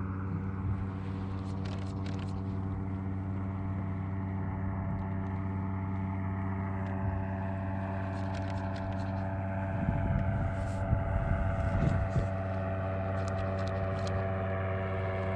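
A motor running at a steady speed, giving a constant, even hum with no change in pitch, and some extra low rumbling around ten to twelve seconds in.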